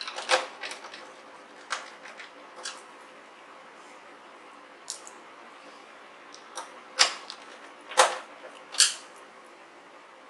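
Irregular sharp clicks and knocks of a screwdriver and screws against the plastic back casing of a Casio CTK-1150 keyboard as its body screws are fastened. The loudest knocks come just after the start and about seven, eight and nine seconds in.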